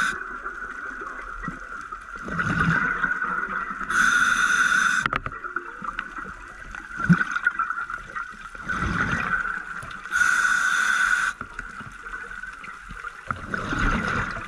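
A scuba diver breathing through a regulator: slow inhalations hiss through the regulator, and exhalations burst out as bubbles twice, about every six seconds. A steady high tone runs underneath.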